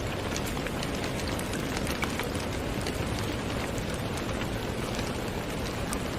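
Steady rain falling: an even, dense hiss scattered with many small ticks of individual drops striking a surface.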